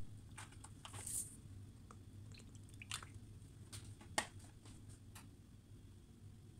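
Vegetable oil poured from a bottle into an empty ceramic-coated frying pan: faint, with a brief hiss about a second in and a scattering of short clicks and ticks.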